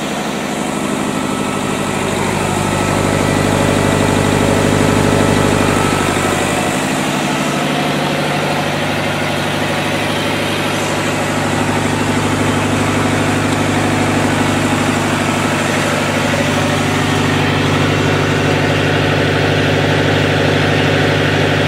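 Lister HA4 four-cylinder air-cooled diesel generator engine running steadily under load. It has no muffler fitted yet.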